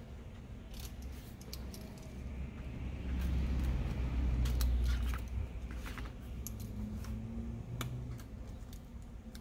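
Small clicks and ticks of hands working double-sided adhesive tape onto a phone's metal frame and trimming it with a snap-off utility knife. A low rumble of handling and pressing on the work surface swells between about three and five seconds in.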